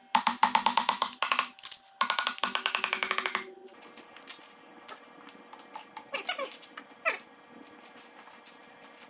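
Background music with fast, rhythmic wood-block-like percussion, dropping to a quieter passage about four seconds in with two falling pitch slides.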